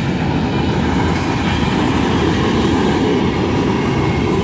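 Freight train gondola cars rolling steadily past a grade crossing: a loud, continuous low rumble of steel wheels on the rails with clickety-clack from the rail joints.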